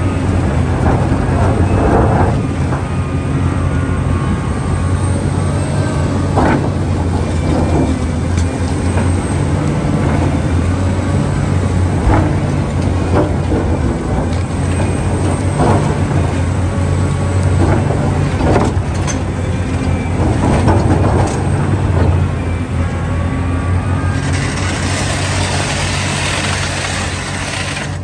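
A heavy machine's diesel engine runs steadily under load, with scattered metallic knocks and clanks. A loud hiss comes in for the last few seconds.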